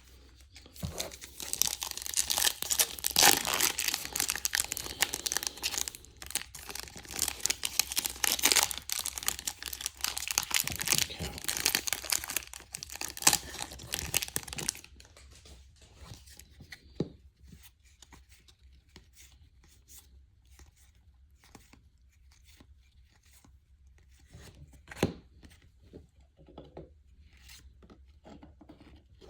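Baseball card pack wrapper being torn open and crinkled, a dense crackling that stops about halfway through, followed by faint rustling and light taps as the cards are handled.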